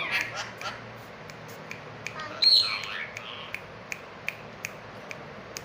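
Ringneck parakeet squawking: a short call at the start and one loud, harsh squawk about two and a half seconds in, over a light ticking of a few clicks a second.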